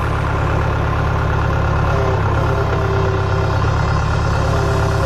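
John Deere tractor's engine running steadily while its backhoe is worked, with a higher tone coming in about two seconds in and again near the end.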